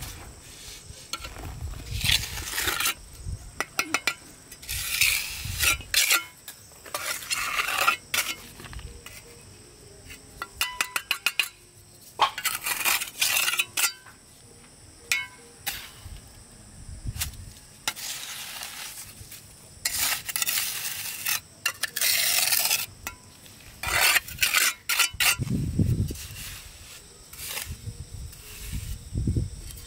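Mason's trowel scraping mortar and clinking against bricks in repeated strokes, with quick runs of taps and a few low thumps near the end.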